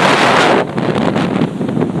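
Storm wind of 60+ mph buffeting the microphone over heavy surf, with a louder rush in the first half second before it drops back to gusty buffeting.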